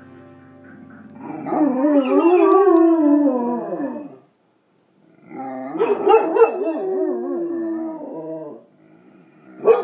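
A Rottweiler mix and a yellow Labrador retriever howling, set off by TV theme music. One long wavering howl starts about a second in; after a short pause comes a second howl with overlapping voices, and a short bark sounds right at the end.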